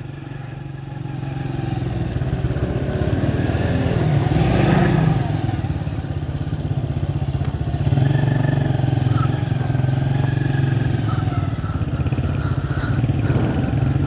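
Motorcycle engine running on the move through street traffic, building up over the first two seconds and then holding steady, with a brief louder swell about five seconds in.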